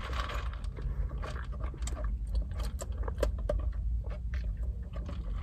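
Steady low rumble inside a parked car, with scattered small clicks and taps on top.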